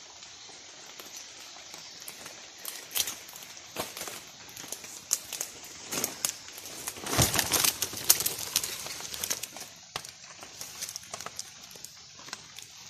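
Rustling and crackling of wet leaves and undergrowth as someone pushes through forest-floor vegetation, with scattered sharp snaps. It gets busiest and loudest a little past the middle.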